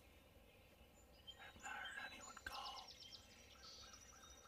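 Faint bird calls in quiet woods: a few short calls, then about halfway through a songbird's rapid trill of high repeated notes.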